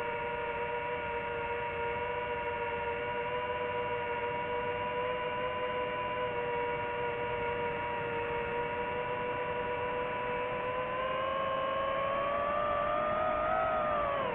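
Quadcopter drone's motors and propellers whining steadily in flight, a held multi-tone whine whose pitch rises a little over the last few seconds.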